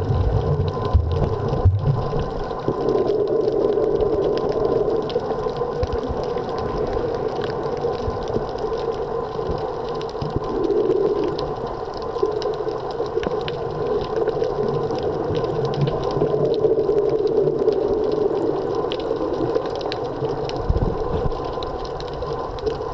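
Underwater sound picked up by a camera: a steady muffled hum with fine, scattered crackling clicks throughout, and a few low bumps near the start and again near the end.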